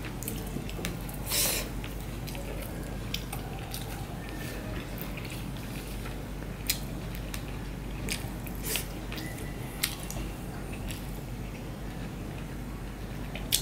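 Close-miked eating by hand: fingers mixing rice and vegetable curry on a banana leaf and wet, squishy chewing, with scattered short smacks and clicks and a louder rustle about a second and a half in, over a steady low hum.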